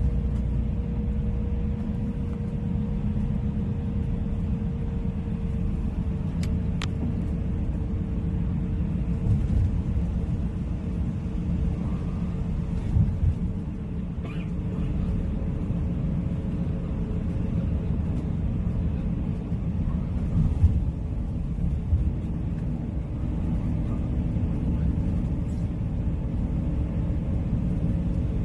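Steady low rumble of a moving vehicle, with a faint constant hum over it and a single sharp click a few seconds in.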